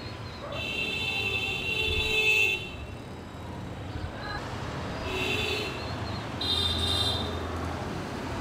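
Street traffic with vehicle horns honking over a steady low rumble: one long honk of about two seconds, then two shorter honks.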